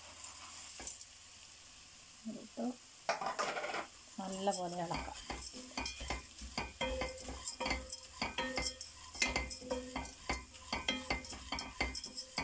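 Black spatula stirring and scraping crisp fried onions through a thick masala in a nonstick pan. The scraping strokes are sparse at first and turn rapid and steady from about five seconds in.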